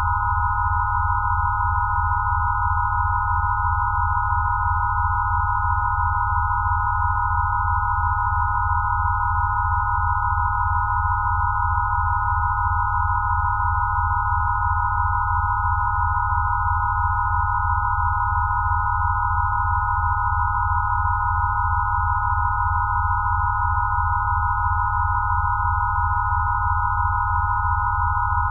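Synthesised rife-style healing-frequency tones: several steady pure electronic tones layered together, a bright middle tone with a few fainter ones just above and below it, over a low pulsing drone. The level holds constant with no change.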